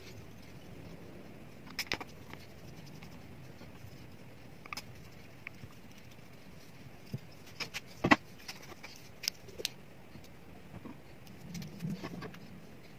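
Scattered light clicks and knocks of hand work on a classical guitar's new bridge with a screwdriver and small tools, with one louder knock about eight seconds in, over faint steady room noise.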